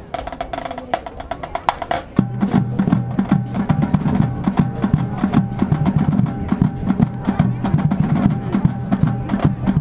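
Marching band drumline playing: light stick clicks over a held tone at first, then about two seconds in the full drumline comes in loud, with bass drums under a dense, rapid beat.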